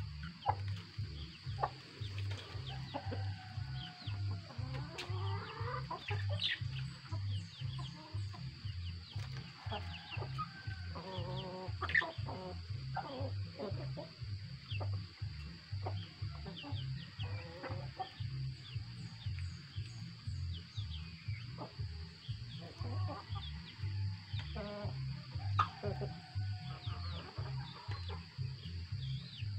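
A flock of chickens clucking and calling while pecking at feed, over background music with a steady low beat.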